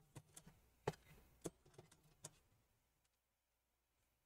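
A handful of faint, sharp plastic clicks and taps as the black mesh panel inside an HP Envy desktop's metal case is handled and worked loose, the loudest about a second in.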